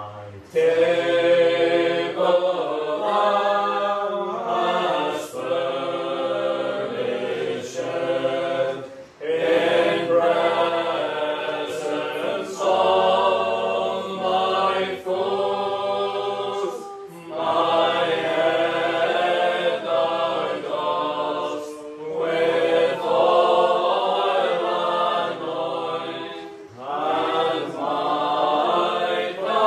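Mixed choir of men's and women's voices singing a gospel hymn in harmony, line by line, with short breaks between the phrases.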